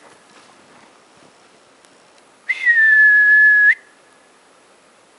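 A single held whistled note lasting about a second, starting about two and a half seconds in. Its pitch dips slightly at the start, holds steady, and flicks up just before it stops.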